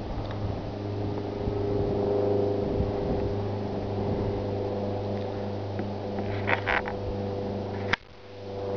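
Steady low mechanical hum, like a motor running at an even speed, with a few short clicks shortly before it breaks off suddenly about eight seconds in.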